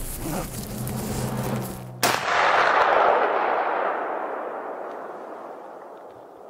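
A single gunshot about two seconds in, its report rolling away in a long echo that fades over the next four seconds.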